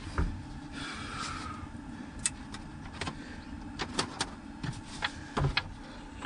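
Scattered light clicks and knocks, about a dozen, from objects being handled, over a steady low rumble.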